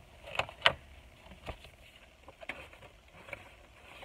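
Handling of packaged baby-product samples and coupons: a few separate sharp clicks and light crinkles, the loudest about two-thirds of a second in.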